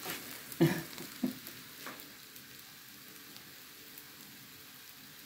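Roti frying in a non-stick pan: a low, steady sizzle. There is a brief vocal sound about half a second in and a couple of light clicks before the sizzle settles.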